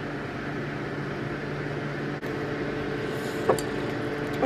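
Steady mechanical hum of a room appliance running, with a few held tones, and a couple of faint clicks partway through.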